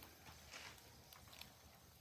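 Campfire crackling faintly, a few soft pops and ticks from the burning wood.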